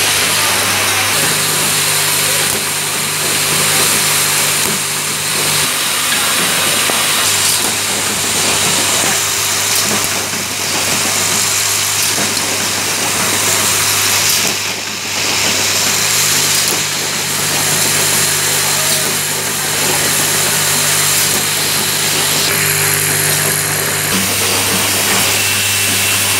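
Automated switch assembly line running, with vibratory bowl feeders humming steadily as they shake small plastic switch parts along their tracks. Under the hum there is a constant mechanical hiss.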